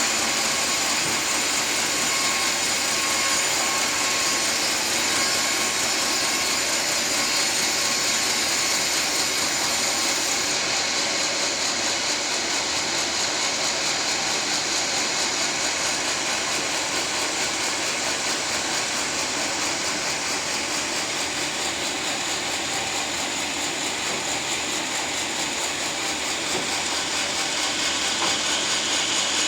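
Sawmill sawing a teak log, running steadily with a high whine; the character of the noise shifts slightly about ten seconds in.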